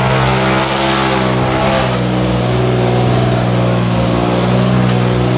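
Car engine sound effect, running steadily at a nearly constant pitch with a dense, even hum.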